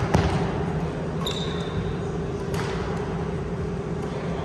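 Badminton rally: a sharp smack of a racket hitting the shuttlecock just after the start as a player jumps into a smash, and another hit about two and a half seconds later. A brief squeak of sneakers on the wooden gym floor comes in between, over a steady low hum in the hall.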